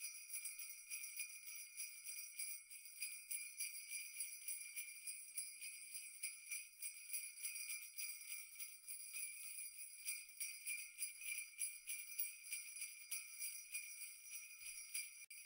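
Faint, high jingle bells shaking continuously, with no bass or other instruments under them.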